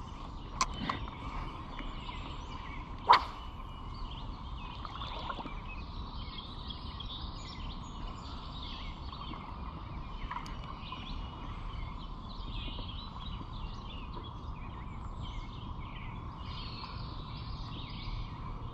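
Creekside outdoor ambience with many short chirps, likely birds, throughout. Three sharp clicks or snaps come in the first few seconds, the loudest about three seconds in.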